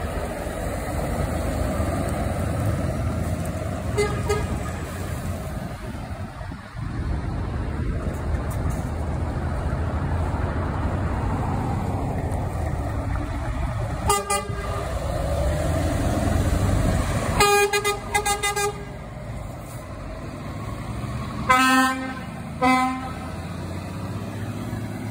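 Lorry tractor units driving past with their diesel engines running, and truck horns sounding: a brief toot, another short one, then a longer run of blasts past the middle and two short loud blasts near the end.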